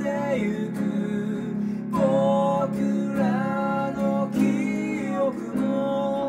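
A man singing a slow Japanese ballad in phrases over his own steadily strummed acoustic guitar.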